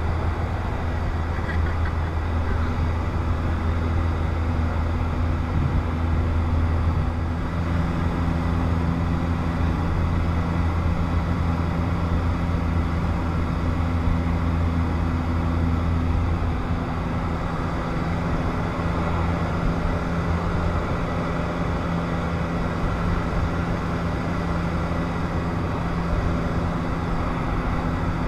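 Light touring aircraft's piston engine and propeller droning steadily in flight, heard inside the cabin with airflow hiss. The engine note shifts slightly about seven seconds in.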